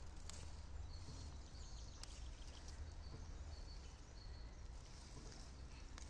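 Quiet woodland ambience: a low steady rumble, with a light click near the start and another about two seconds in, and a few faint high chirps.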